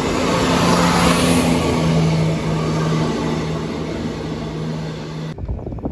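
Class 170 Turbostar diesel multiple unit running past close by: a steady diesel engine drone with wheel and rail noise, loudest about a second in. Near the end it cuts off abruptly, and low gusts of wind rumble on the microphone.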